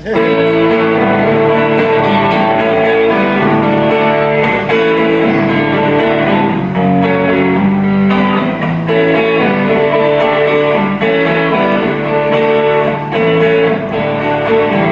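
A live band kicks in suddenly with a song's instrumental intro, led by strummed guitars over a bass line, with no singing yet.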